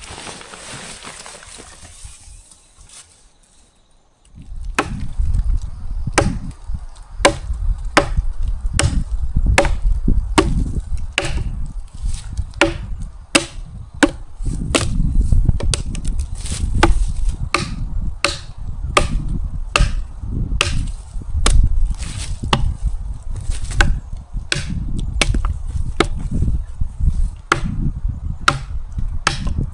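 Repeated chopping strikes on wood, about one and a half a second, starting about four seconds in, over a heavy low rumble.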